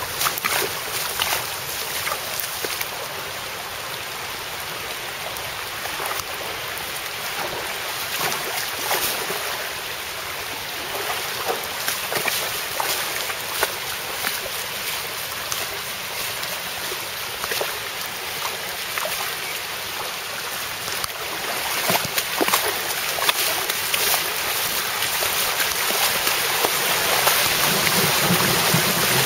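Floodwater rushing and splashing along a flooded street, a steady rush of running water that grows louder over the last several seconds.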